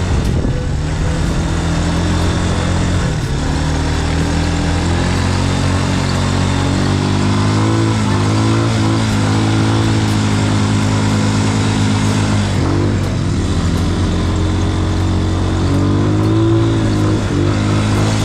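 Quad bike (ATV) engine running under throttle. Its pitch holds steady, then shifts up and down every few seconds, with wind noise over it.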